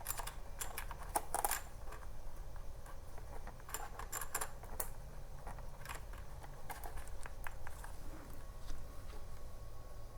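Faint, irregular light clicks and rattles from a charger and its cable being handled and connected.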